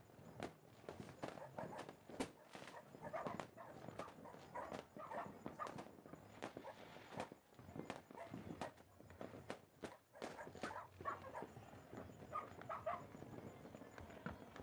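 Faint, irregular pops and cracks of distant fireworks, several a second, with no steady rhythm.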